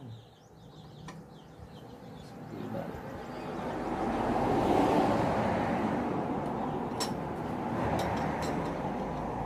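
A passing motor vehicle rises to its loudest about halfway through and then eases off slowly. Near the end come two light clicks of a wrench on the bracket bolts.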